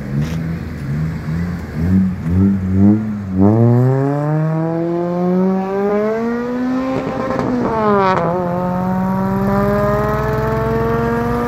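Toyota Celica's four-cylinder engine blipped in a quick series of short revs, then accelerating away hard, its pitch climbing steadily, dropping at a gear change about eight seconds in, then climbing again.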